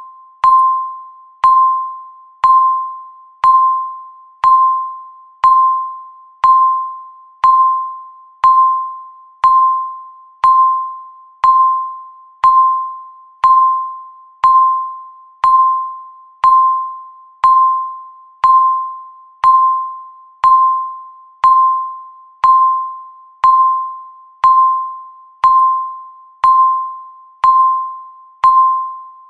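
Countdown timer beeping once a second: one short electronic tone at a single steady pitch, each beep ringing and fading away before the next.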